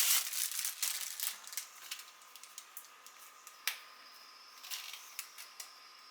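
Packaging crinkling as a parcel is unwrapped, dying away over the first second or so, then scattered small clicks and taps of items being handled, the sharpest one a little past halfway.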